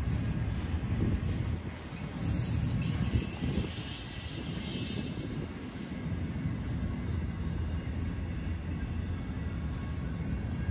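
Intermodal freight train cars rolling past at close range: a steady low rumble from the wheels and cars. About two seconds in, a high-pitched hiss joins it for about three seconds.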